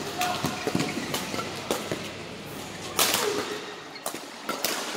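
Badminton rally: rackets striking the shuttlecock in sharp cracks, with shoes squeaking on the court floor. A louder hit comes about three seconds in.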